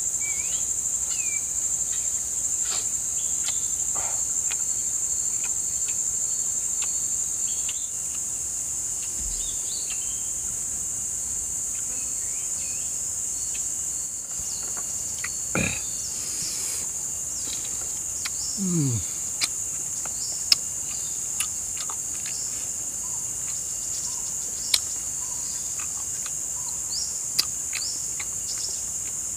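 Insects droning steadily at a high pitch, a little louder for the first eight seconds or so. A few faint clicks and knocks are scattered through it.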